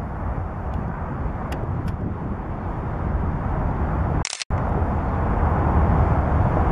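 CN diesel freight locomotives rumbling as the train approaches, the low rumble growing louder. There is a brief click and a moment of dropout about four seconds in.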